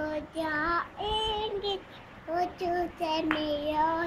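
A young girl singing unaccompanied, in short held phrases with small rises and falls in pitch.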